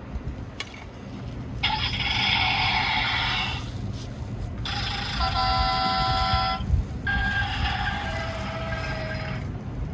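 A battery toy truck's electronic sound effect played three times in a row, each burst about two seconds long, over a steady low rumble.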